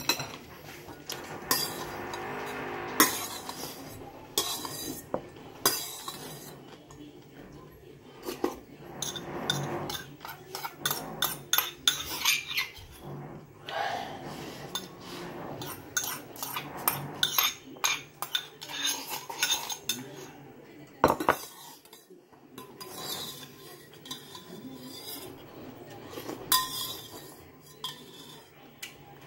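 A metal spoon clinking and scraping against a stainless-steel bowl and a porcelain rice bowl, in many short, irregular clinks through the meal.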